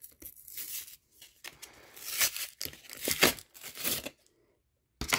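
Foil wrapper of a Pokémon trading card booster pack being torn open in several short rips with crinkling. The loudest rips come around the middle, and the tearing stops about four seconds in.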